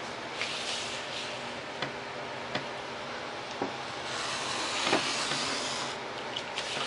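Craft knife drawn along a steel ruler, slicing through foam board with a scratchy hiss, the longest cut about four to six seconds in, with a few light clicks and taps as the knife and ruler are handled.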